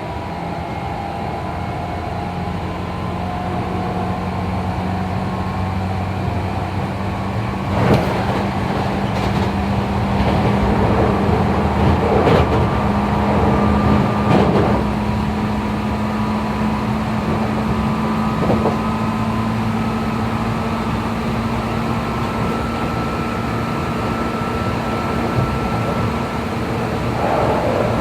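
Hankyu 3300 series electric train running, heard inside the motor car: loud traction-motor whine over wheel and rail noise, its tones slowly rising in pitch as the train gathers speed, with a few knocks from the wheels over rail joints. The motors of the paired cars 3309 and 3409 turn at slightly different speeds because their wheels are worn to different diameters, so their whines sound out of step.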